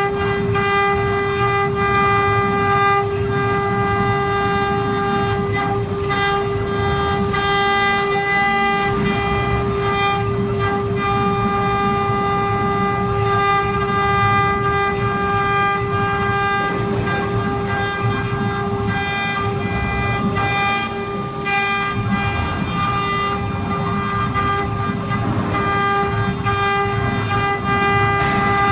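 Double-head wood CNC router at work: its 2.2 kW water-cooled spindles give a steady, unbroken whine, with a rough rumble and scattered clicks underneath.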